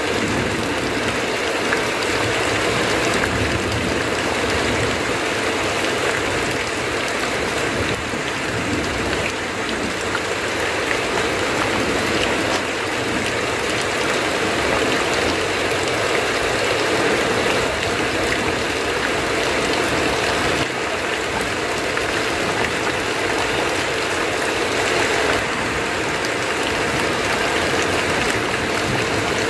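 Heavy rain falling steadily on a tin roof, with runoff streaming off the roof edge; an even, unbroken wash of rain noise.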